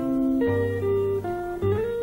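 Song music with no singing: a guitar playing a melody of held notes over a bass line.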